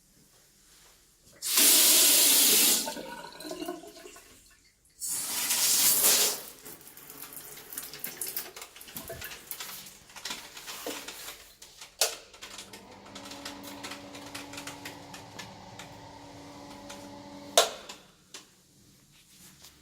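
Water tap running into a sink in two strong gushes of about a second each, followed by quieter splashing with small clicks. In the last few seconds a steady pitched whine runs, then stops with a sharp click.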